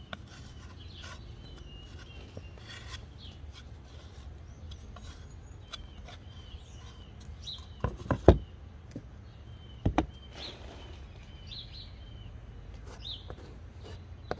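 Small birds chirping again and again over a steady low outdoor rumble, with a few sharp knocks about eight seconds in and again about ten seconds in.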